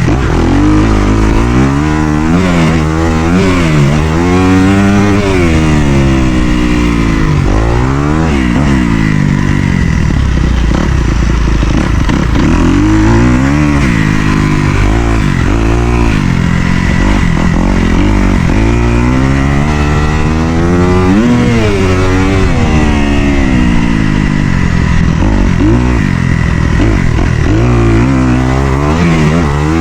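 Dirt bike engine being ridden hard, revving up and dropping back again and again as the throttle is opened and closed, its pitch rising and falling every second or two.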